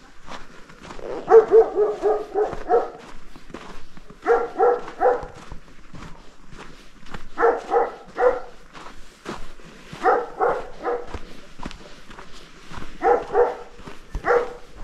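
A dog barking in quick runs of several barks, about six runs a few seconds apart, with footsteps throughout.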